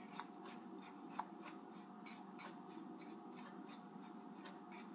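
Metal spoon stirring dry brown sugar and ground cinnamon in a small ceramic bowl: faint, quick scraping clicks, about four a second.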